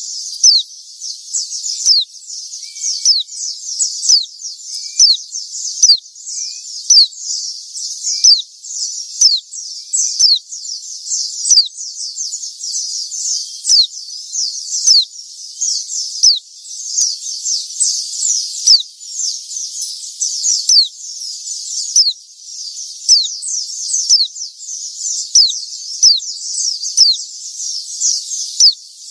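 White-eyes (pleci) calling without a break in rapid, high-pitched chirps: short falling notes several a second, swelling louder about once a second.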